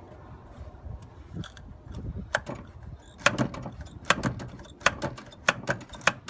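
Hand ratchet wrench being worked on engine fasteners: sharp metallic clicks in short strokes, starting about two seconds in and coming faster toward the end.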